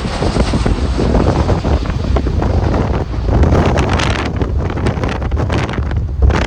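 Strong gusting wind buffeting the microphone: a heavy, uneven low rumble with ragged crackling.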